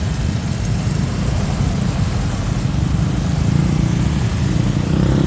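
Busy road traffic: cars, minivans and motorcycles running and moving along the road, a steady low rumble of engines.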